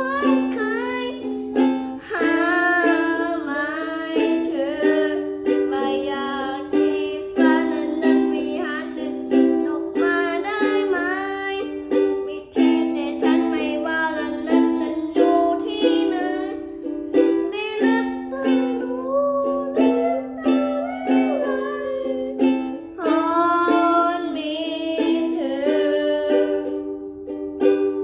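A cover of a Thai pop song: one voice singing over strummed plucked-string accompaniment.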